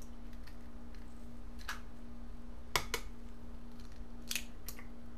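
Eggs being cracked open by hand over a glass mixing bowl: a few sharp cracks and crunches of eggshell, the loudest about three seconds in. A steady low hum runs underneath.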